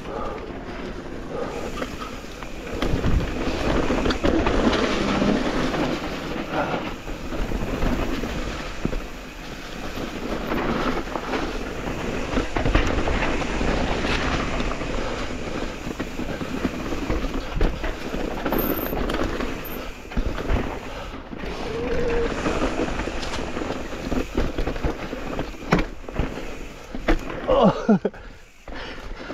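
Mountain e-bike riding over a dirt trail: steady tyre and rolling noise with rattling and scattered knocks as the bike goes over bumps. A brief squeal near the end.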